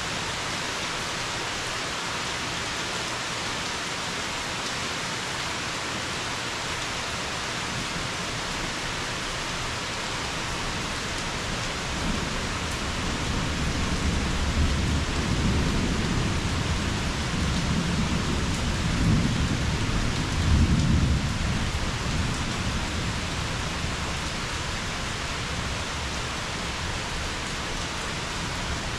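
Steady rain falling throughout, with a long roll of thunder about halfway through that rumbles for roughly ten seconds, swells twice and fades away.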